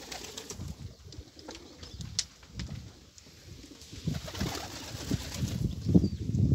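Old Polish and Rzeszów breed domestic pigeons cooing, the low repeated coos growing louder about two-thirds of the way in, with a few faint clicks.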